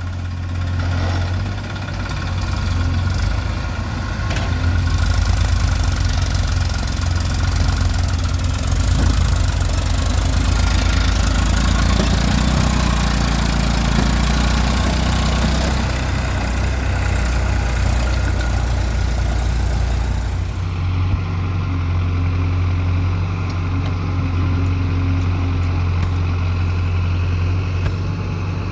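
Heavy diesel engine running steadily, its note changing and the higher noise dropping away about twenty seconds in.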